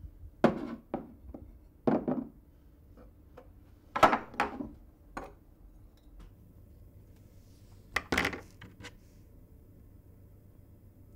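Broken pottery shards clicking and knocking on a hard tabletop as they are handled and fitted together: a dozen or so short knocks in small clusters, the loudest about four seconds in and again about eight seconds in.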